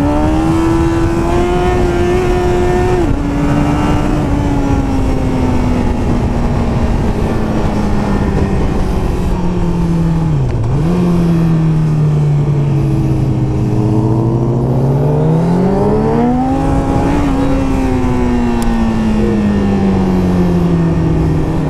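Sport motorcycle engine running under way with the rider's wind rush: the engine pitch holds, sags, dips sharply about ten seconds in, then climbs for a few seconds and falls back and settles near the end.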